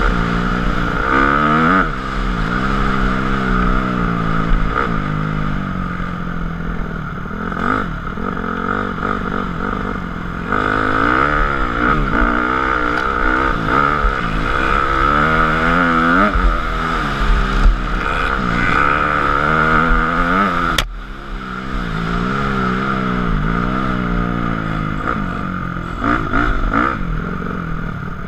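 2004 Honda CRF250R's four-stroke single-cylinder engine revving up and falling off again and again as the rider works the throttle around a dirt track, the pitch rising and dropping every couple of seconds. About 21 seconds in there is a sharp click and the engine drops off briefly before pulling again.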